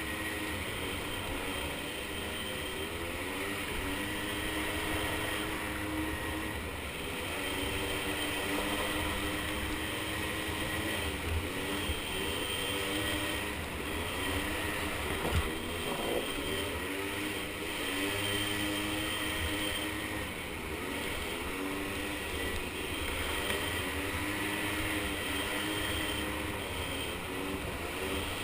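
Small 50cc ATV engines revving up and down repeatedly as they are ridden around a track, the pitch climbing and dropping every second or two over a low rumble.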